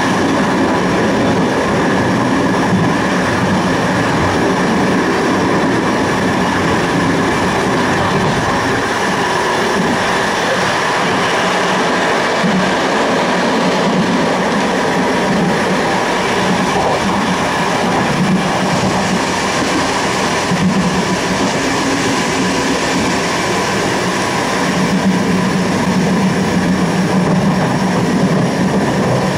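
Passenger train running along the line, a steady rumble of wheels on rails and running gear heard from the driver's cab.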